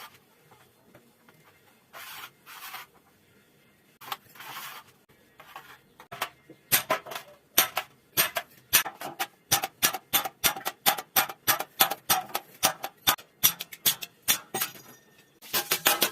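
Hand work on sheet metal for a rice-steamer rack: a few short scraping strokes, then a run of sharp ringing hammer strikes on metal, two to three a second, quickening near the end.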